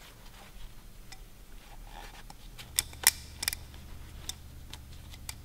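Gloved hands wiping a plastic oil filter housing with a paper shop towel, with a few sharp clicks and knocks as the part is handled, the loudest about three seconds in.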